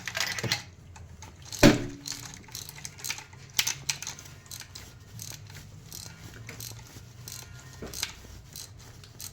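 Metal hand tools clicking and clinking in irregular small taps, like a socket ratchet being worked, with one loud knock about one and a half seconds in.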